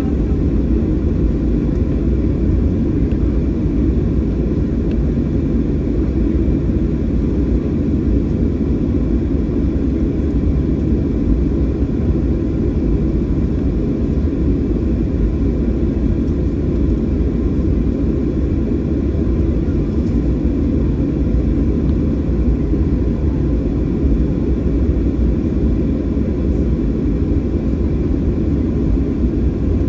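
Cabin noise inside a Boeing 737-700 taxiing after landing: the CFM56-7B engines at idle and the airflow heard through the fuselage as a steady low rumble, with a faint high whine.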